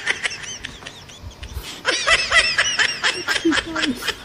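High-pitched giggling laughter in quick runs of short notes, one run right at the start and a longer one from about two seconds in.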